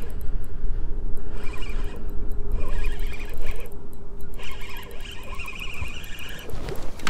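Spinning reel being cranked in spells while a hooked walleye is played, over heavy wind rumble on the microphone.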